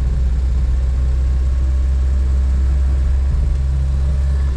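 Renault 4L's engine droning steadily at low speed, heard from inside the cabin, with the low hum shifting slightly about three seconds in.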